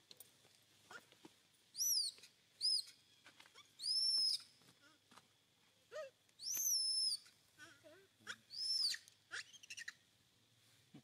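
Macaque giving five high-pitched squeals over about seven seconds, each rising, holding and falling within a second, with a few fainter, lower calls between them.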